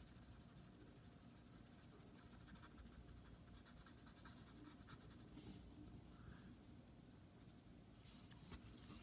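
Blue colored pencil scratching faintly on paper in many quick shading strokes, a little louder near the end.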